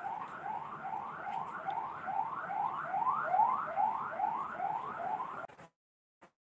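An electronic alarm sounding a fast run of rising whoops, about two and a half a second. It cuts off suddenly about five and a half seconds in.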